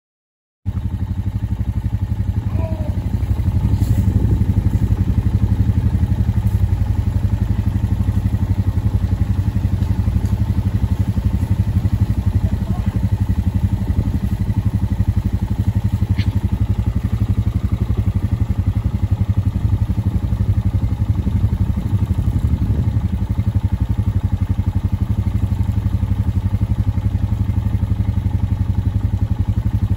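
Quad (ATV) engine running steadily while riding, a constant low drone with no clear change in speed.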